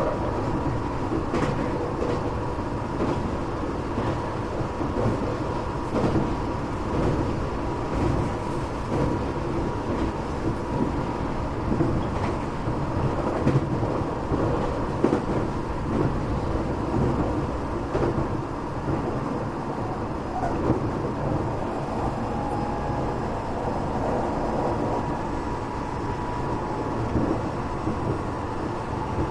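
Tokyo Metro 8000 series train running between stations, heard from inside a passenger car: a steady rumble of wheels on rail with occasional sharp clicks and a faint steady whine.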